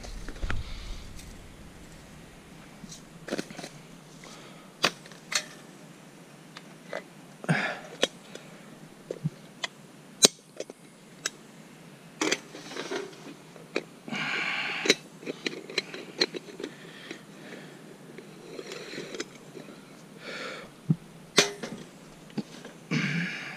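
Irregular light clicks and knocks, with a few short rushes of noise, the longest lasting over a second about halfway through, as camp gear is handled at a wood-burning stove.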